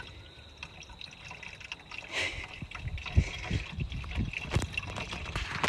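Liquid being poured, trickling and gurgling, with a few small knocks.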